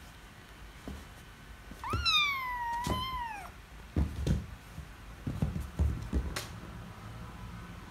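Kitten giving one loud, long meow about two seconds in that rises, dips, rises again and falls away. It is followed by several soft thumps of kittens scuffling on a leather sofa.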